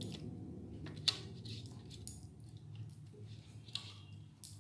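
A spoon scraping thick green chutney out of a plastic mixer-grinder jar into a glass bowl: a few soft clicks and knocks, the sharpest about a second in, over a faint steady low hum.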